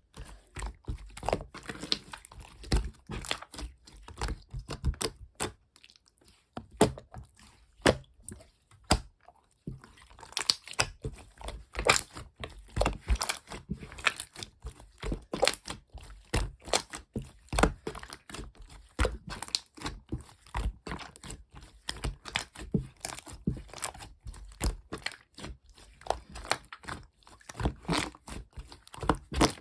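A fast, irregular string of small clicks, taps and crinkles, like objects being handled at close range. It goes quieter for a few seconds about six seconds in, broken by a few single sharp clicks, then resumes.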